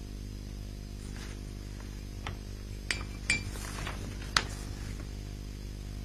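A handful of light, sharp clinks in the middle, the last the loudest, over a steady low hum.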